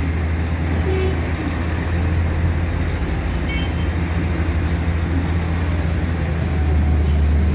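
A vehicle engine running steadily close by, a constant low hum, amid street traffic noise.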